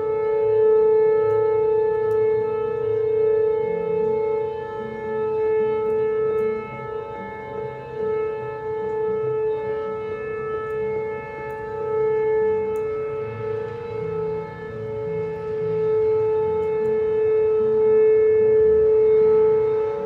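Tornado warning siren sounding one steady held tone, its loudness swelling and fading every few seconds.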